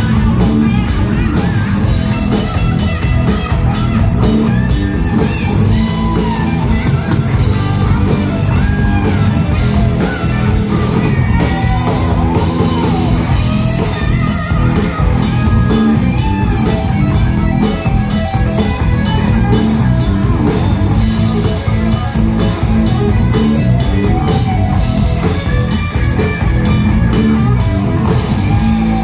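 Rock band playing live: a guitar plays melodic lead lines over bass and a drum kit, steady and loud throughout.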